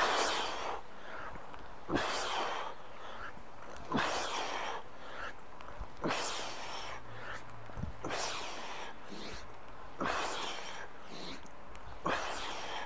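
A man's sharp, hissing exhales, one about every two seconds, timed to each rep as he swings a steel mace around his head in 360s.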